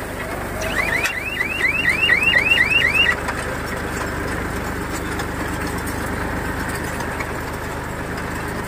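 Tractor-drawn baler's warning buzzer sounding a rapid run of rising chirps, about four a second, for roughly two seconds near the start, over the steady running of the tractor and baler. The buzzer is the signal to stop the tractor and unload the bale.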